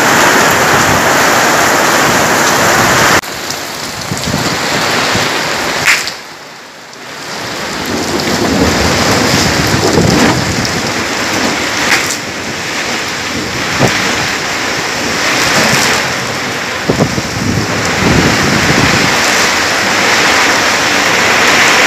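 Heavy thunderstorm downpour: dense rain pouring steadily, with a few short sharp cracks. The sound drops abruptly about three seconds in and dips briefly a few seconds later before building up again.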